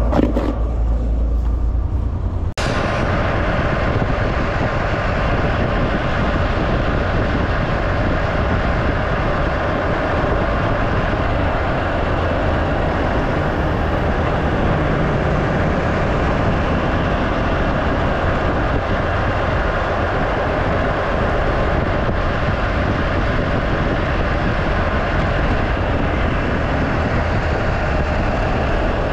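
Semi truck running and rolling slowly, a steady mix of engine and road noise picked up from outside the cab. About two and a half seconds in, the sound changes sharply from a low hum to this broader steady noise.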